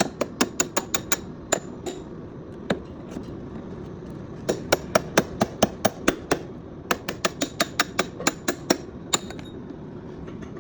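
Light hammer blows struck in quick runs of about four or five a second, with short pauses between the runs.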